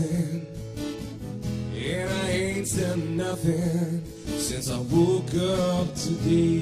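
Background music: an acoustic guitar country-style song with a singing voice.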